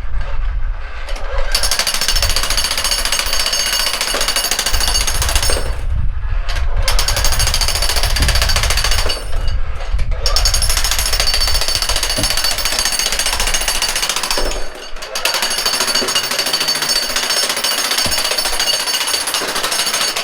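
Jackhammer hammering continuously, with a few brief pauses of about a second between runs.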